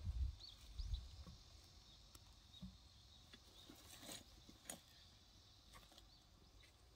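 Quiet outdoor ambience. There are a few low thumps near the start, then a couple of light clicks about four and five seconds in, with faint high chirps and a steady faint hiss behind them.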